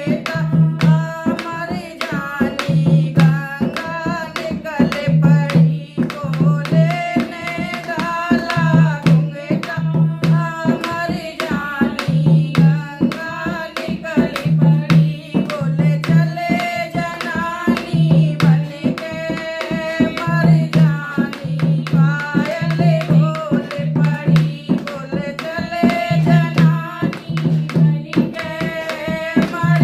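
Hindi devotional song (bhajan): a singing voice over a steady, evenly repeating drum beat with instrumental accompaniment.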